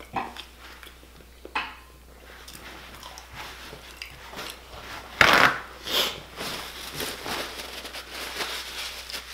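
Scattered small clicks, crackles and rustles from close-miked handling of food and its wrappings and from mouth sounds, with a louder, brief rustling burst about five seconds in.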